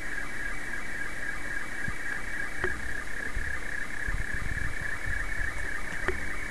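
Slow-scan television (SSTV) picture signal received on the 20 m amateur band at 14.230 MHz, upper sideband: a continuous band of fast-shifting high tones with faint regular ticks just below it, over radio hiss, as an image is being transmitted line by line.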